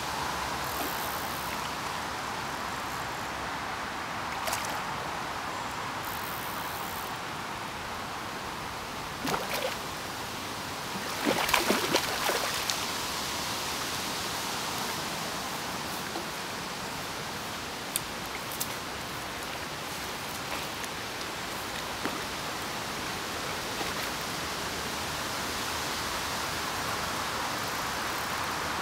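Steady rush of flowing water, with a few short louder noises about a third of the way in.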